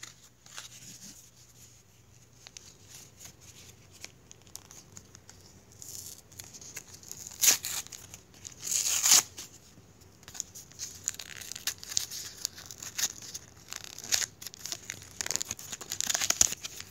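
Cardboard-and-plastic blister packaging being torn open by hand, with crinkling throughout. Two loud tears come about seven and a half and nine seconds in, the second the loudest, followed by a long run of smaller tears and crinkles.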